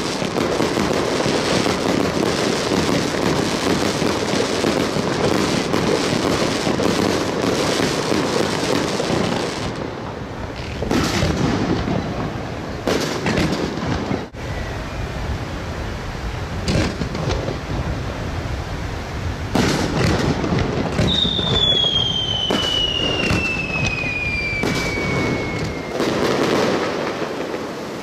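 Fireworks display: aerial shells going off in quick succession, with several sharp bangs standing out in the second half. About three quarters of the way through comes a long whistle falling in pitch.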